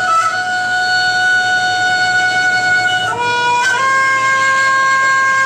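A solo woodwind instrument playing long held notes of a slow melody, stepping up to a higher note about three seconds in.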